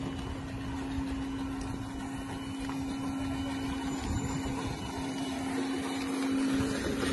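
Steady motor hum holding one pitch, over a low rumble.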